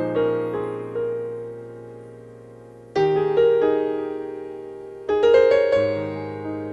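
Instrumental backing track for a hymn: piano chords struck about every two to three seconds, each left to ring and die away, with a few lighter notes in between.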